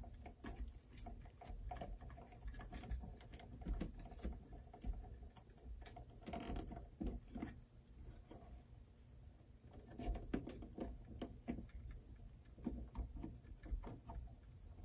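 Faint, irregular clicks and rustles of hands working electrical wires and plastic wire nuts, twisting the dimmer's leads onto the house wiring.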